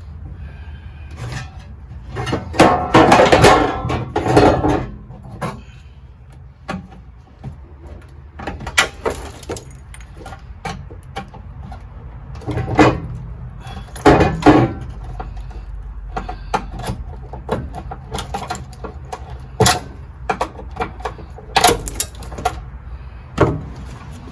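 Irregular knocks, clunks and rattles of car interior parts being handled and pulled loose during a teardown, with a loud burst of clatter about three seconds in and another cluster about halfway through.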